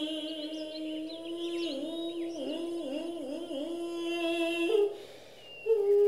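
Background music: a voice holding a long hummed note that wavers and bends up and down in pitch in the middle, then stops about five seconds in. A new steady held tone starts just before the end.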